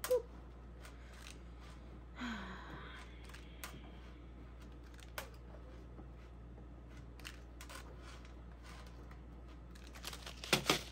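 Light, scattered ticks and taps of small seeds being picked off a tabletop and dropped back into a paper seed packet, with a quick burst of louder clicks and paper rustle near the end. A short hummed note opens it.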